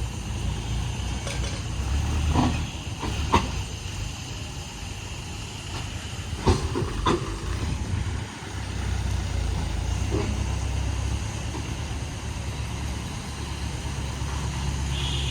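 A vehicle engine running steadily at low speed, with a few short knocks or clanks scattered through the first half.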